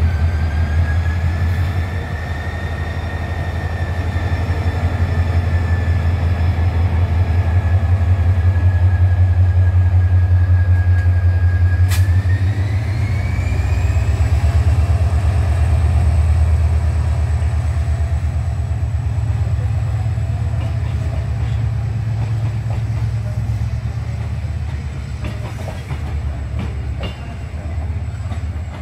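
Diesel locomotive pulling out with a passenger train: a loud, steady low engine drone with a high whine that rises in pitch about twelve seconds in as it powers up. The coaches' wheels click over the rail joints near the end.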